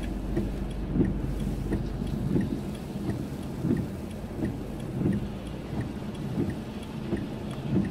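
Car cabin noise while driving: a steady low road and engine rumble with small irregular knocks, and faint quick ticking, about three a second.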